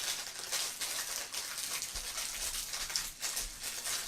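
Light rustling and handling of phone packaging: irregular soft crinkles and small taps as an item is taken out of the box.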